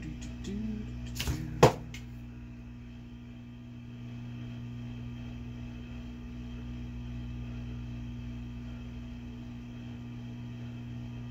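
Steady low electrical hum, with two sharp clicks about a second and a half in, the second one loud.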